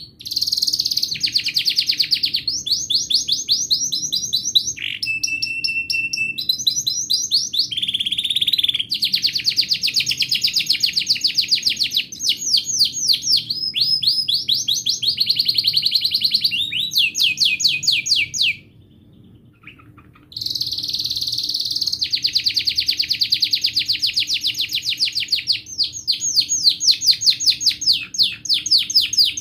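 A domestic canary singing a long, continuous song of rapid rolling trills, with one held whistled note about five seconds in and a short break a little past the middle.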